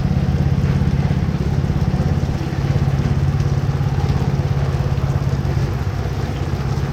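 A small engine running steadily at idle with an even low hum, over the hiss of rain falling on the street and awnings.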